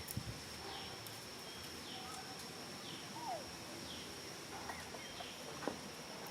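Outdoor wildlife ambience: a steady high-pitched drone with short falling chirps about once a second, a single lower falling whistle about halfway through, and a few faint clicks and rustles.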